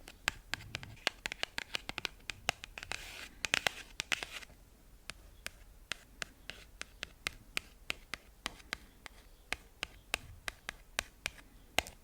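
Fingernail tapping and scratching on oracle cards: quick, irregular taps, several a second, with a brief scratchy rustle about three to four seconds in.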